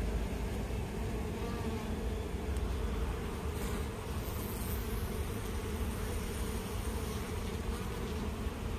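Honeybees buzzing steadily in large numbers on a brood frame lifted out of an opened hive.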